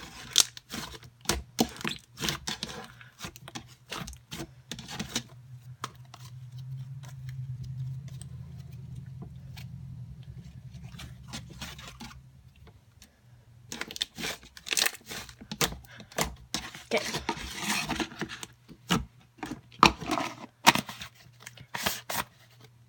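Butter slime being squished and stretched by hand, giving runs of quick sticky crackles and pops. In a quieter stretch in the middle a low steady hum takes over before the crackling starts again.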